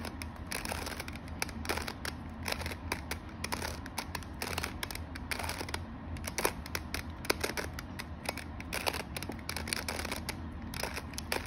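A 3x3 Rubik's cube being turned by hand, its plastic layers clicking in quick, irregular strokes as a short move sequence is repeated several times.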